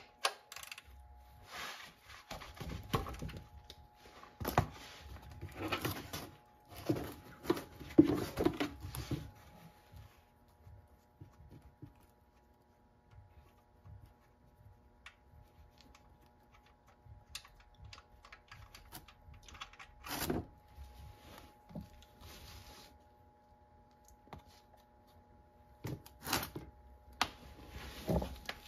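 Irregular clicks, knocks and rubbing of a hand and tool working the oil drain plug under the oil pan, busiest in the first ten seconds, then a few sparse clicks.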